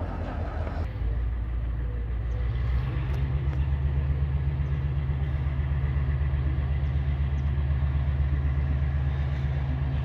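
G22 diesel-electric locomotive's EMD 645 two-stroke diesel engine running steadily during shunting. Its note steps up about three seconds in as the throttle is opened.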